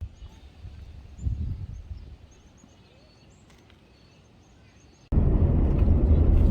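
Wind buffeting the microphone with faint, high, short bird chirps. About five seconds in, an abrupt cut to loud, steady vehicle road and engine rumble.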